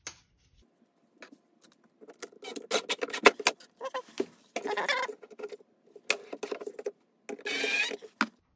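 Clicks and metallic rattles as a steel ball-bearing drawer slide and its screws are handled against the cabinet side. Near the end a cordless drill/driver whirs for just under a second as it starts a screw through the slide.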